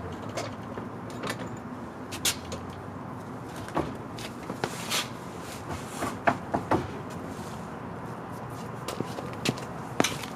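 Irregular clicks and knocks of hand tools and metal car parts being handled, with a brief hissing swish about five seconds in.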